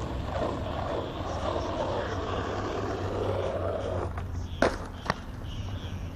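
Skateboard wheels rolling on concrete. About four seconds in the rolling stops and the board lands with a loud clack, then a second smaller clack about half a second later.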